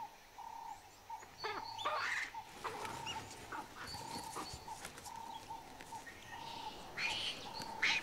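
Chacma baboons calling: a few short, pitched calls, some sliding down in pitch, mostly about a second or two in and again near the end. A steady high hum that breaks off and resumes sits behind them.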